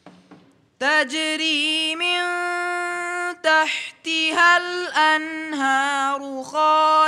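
A young man's voice reciting the Quran in melodic tajweed style. It comes in about a second in with long held notes and wavering turns of pitch, and breaks briefly between phrases.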